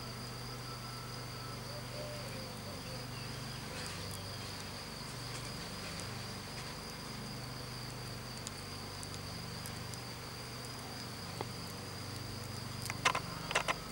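Steady insect sound: a low, slightly wavering buzzing hum under a continuous high-pitched trill. A few sharp clicks come near the end.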